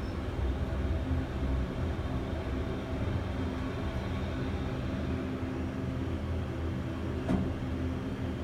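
Montgomery KONE in-ground hydraulic elevator car descending, heard from inside the cab: a steady rumble with a low hum under it.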